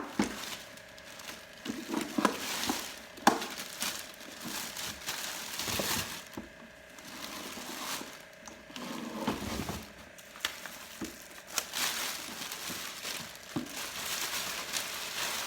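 Packaging being handled and unwrapped: plastic wrapping and cardboard crinkling and rustling, with scattered knocks as parts are lifted out of the box.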